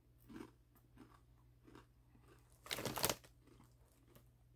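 A person chewing thin, crispy Cheez-It Snap'd cheese crackers: soft, irregular crunches, with one louder, brief noise about three seconds in.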